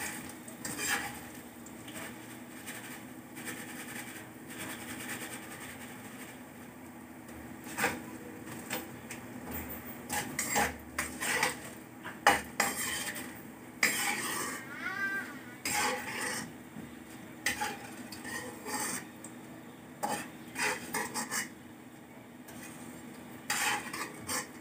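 Metal kitchen utensils clinking and knocking against a wok, in irregular taps and scrapes, as a wire mesh strainer scoops French fries out of frying oil.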